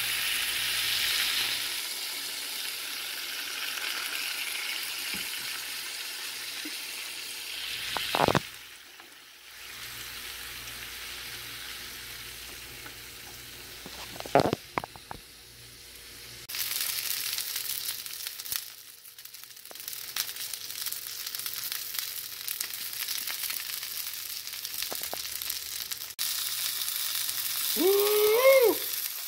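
Salmon fillet frying in butter, olive oil and red wine vinegar in a nonstick pan: a steady, bright sizzle whose level shifts a few times. Two sharp knocks come about eight and fourteen seconds in, and a short squeak near the end is the loudest sound.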